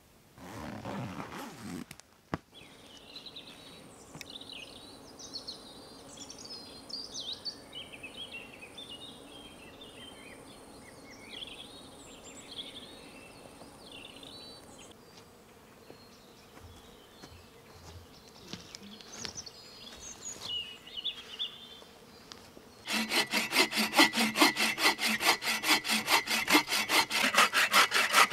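Faint scattered chirping in a forest, then about three-quarters of the way through a folding bow saw starts cutting through a fallen wooden branch with quick, even back-and-forth strokes, much louder than what came before.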